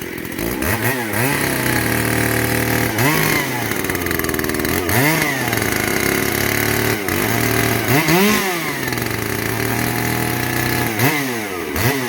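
Stock two-stroke chainsaw revved up and let fall back to idle several times, with quick blips near the end. The carburetor jets are out of adjustment, as the owner says.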